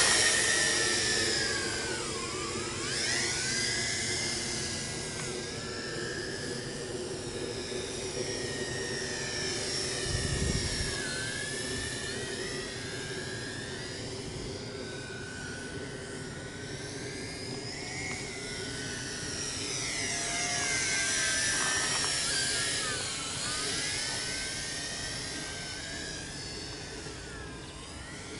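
Tarantula X6 quadcopter's electric motors and propellers whining as it flies, the pitch gliding up and down with throttle changes and growing louder as it comes closer. A brief low rumble about ten seconds in.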